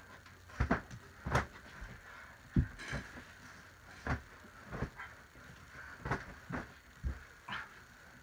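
Pillows striking a person again and again: about a dozen irregular thuds in quick, uneven succession.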